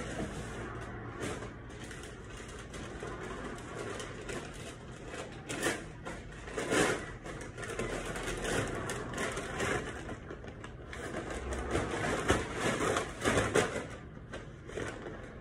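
Irregular rustling and knocking, as of things being handled and moved, with a few louder bursts about six to seven seconds in and again near the end.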